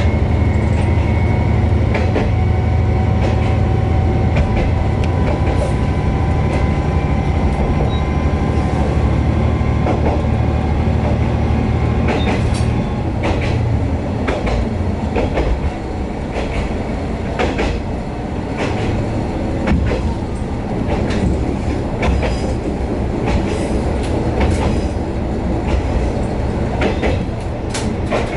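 Diesel railcar running along the line: a steady low engine drone with a thin whine over it, and irregular clicks and knocks of the wheels over rail joints. The drone eases a little about halfway through.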